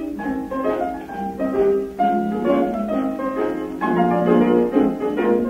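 Dance orchestra playing an instrumental passage of a 1931 foxtrot on a shellac 78 rpm record, a busy run of quick notes with no singing.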